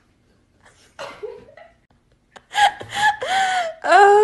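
A person laughing: a short laugh about a second in, then a run of quick laughs, building to a louder, drawn-out laugh near the end.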